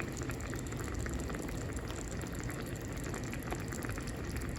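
Stuffed squid cooking in a pan on the stove: a steady crackle of many small bubbling and sizzling pops.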